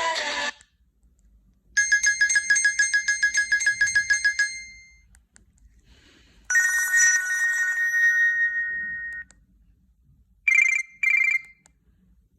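A Nokia C2-01 mobile phone playing a series of short electronic alert tones. First comes a rapid pulsing beep lasting a few seconds, then a steady two-note tone, then two short warbling chirps near the end.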